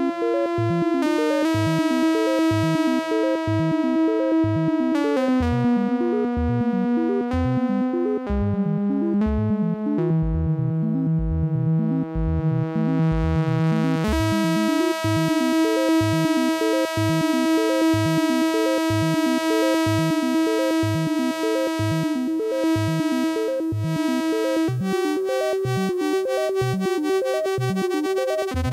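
Yamaha CS-30 analog synthesizer playing a held, bright note over a fast repeating pulse pattern. The held note steps down in pitch several times, then jumps back up at about 14 s. The tone turns duller while the note is low and brightens again when it jumps back up.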